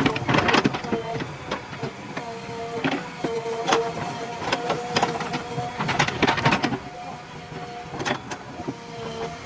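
JCB 3DX backhoe loader at work: its diesel engine and hydraulics run with a steady whine that comes and goes, broken by repeated clanks and knocks of the bucket and linkage.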